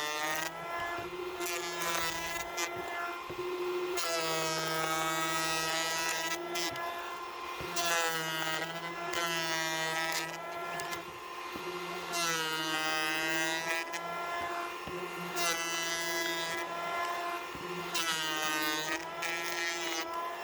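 Ryobi 18-volt cordless planer running and cutting rough-sawn cedar in repeated passes, taking about a 1/32-inch cut to remove chainsaw marks. The motor whine drops in pitch each time the blades bite and rises back between passes. Each cut carries a hiss of shavings.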